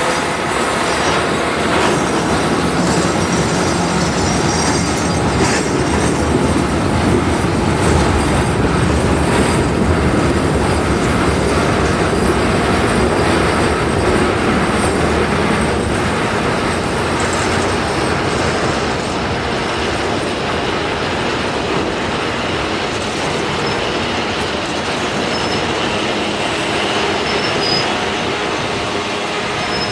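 Freight cars of a mixed-freight train rolling steadily past, wheels clacking over rail joints, with brief high-pitched wheel squeals near the end.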